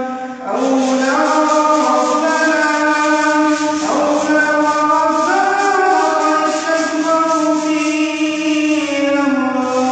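A man's voice reciting the Quran in a melodic chant, holding long notes that slide slowly in pitch, with a short break for breath about half a second in.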